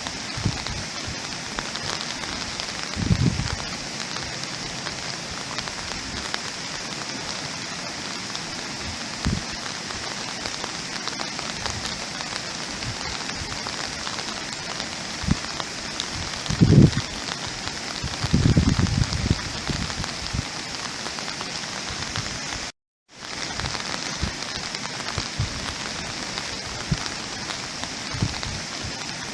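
Steady rain falling, an even hiss with a few louder low thumps of drops landing close by. The sound cuts out completely for a split second about two-thirds of the way through.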